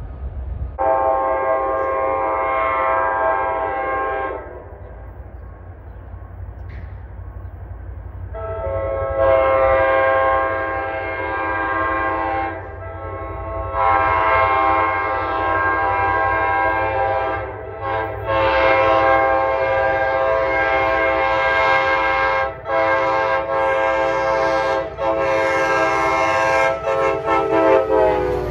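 NJ Transit locomotive's chord horn blowing a drawn-out series of blasts: one blast of about three seconds, a pause, then long blasts with short breaks between them, still sounding at the end. The low rumble of the train runs underneath.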